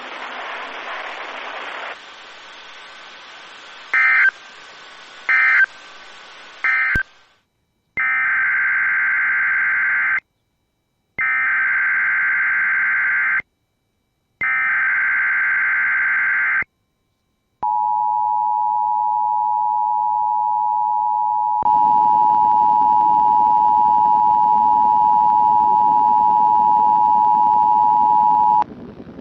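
Emergency Alert System signals over radio hiss. First come three very short end-of-message data bursts. Then come three longer screeching SAME header data bursts, each about two seconds long and about a second apart. Last comes the steady two-tone EAS attention signal, held for about eleven seconds.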